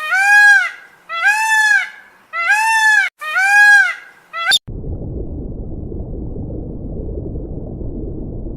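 An animal calling four times, each a drawn-out call of about a second that rises and falls in pitch. About four and a half seconds in, the calls give way to a steady low rumbling noise.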